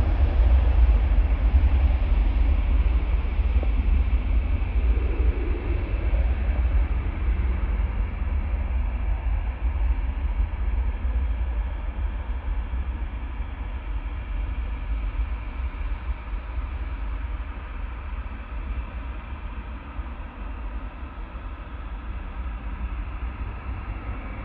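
Ryanair Boeing 737's jet engines at take-off thrust: a steady, deep rumbling roar that slowly fades as the aircraft rolls away down the runway.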